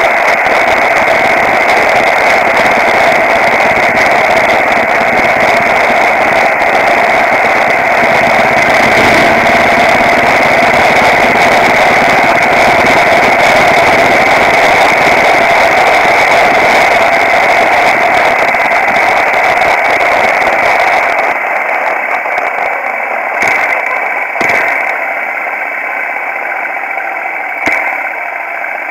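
Loud, steady wind rush and riding noise on a microphone mounted on a moving motorcycle, with the engine under it. About three quarters of the way through, the noise eases as the bike slows, and a few sharp knocks follow near the end.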